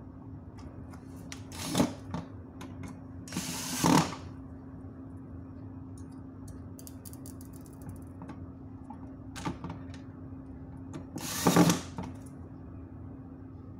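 Cordless drill-driver running in short bursts to drive screws into an LED street-light housing: one brief burst about 2 s in, a longer one around 4 s, and another near the end. Small clicks of screws and the bit being handled come between the bursts.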